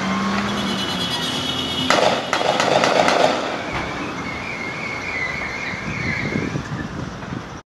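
Street noise with vehicle traffic, broken by a couple of sharp cracks about two seconds in and a faint, high, wavering tone through the middle.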